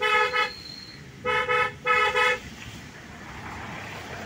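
A vehicle horn honking three short blasts, the last two close together, over steady road and engine noise of traffic passing a line of trucks; after the third blast only the road noise goes on.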